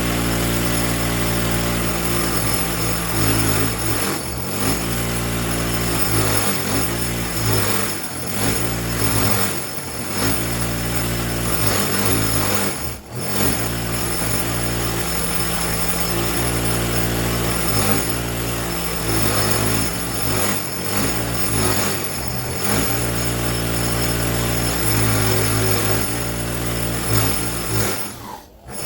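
Bench-mounted wire wheel running steadily, its hum sagging and recovering every few seconds as a steel pipe wrench is pressed against it to strip rust and scale. The sound drops out briefly twice, about halfway through and near the end.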